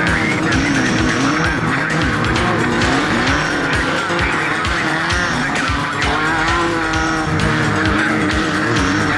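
Class 11 stock VW Beetle's air-cooled flat-four engine racing, its pitch rising and falling again and again as it revs and shifts, with many short irregular thumps under it.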